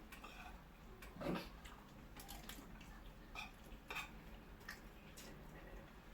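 Faint, scattered clinks of cutlery against plates while eating, with a brief murmur about a second in.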